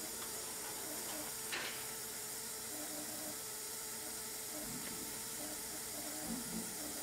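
Steady hiss of carbon dioxide gas venting as a multi-layer foil sample bag is pressed to purge it empty, with a short crinkle of the bag about one and a half seconds in.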